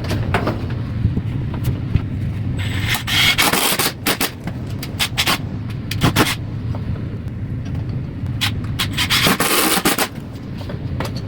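Scraping and knocking of wood-framing work, with many sharp knocks and a few longer scrapes, over a steady low hum.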